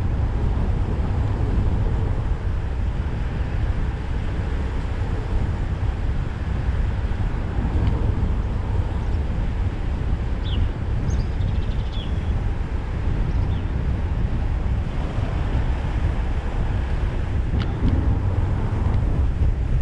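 Steady low rumble of a car driving along a country lane: engine and road noise, with wind on the microphone.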